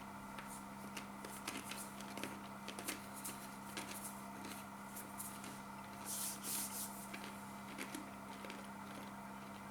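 Someone chewing Takis rolled tortilla chips with the mouth: scattered small crunches and clicks, with a louder spell of crunching about six seconds in. A steady low hum runs underneath.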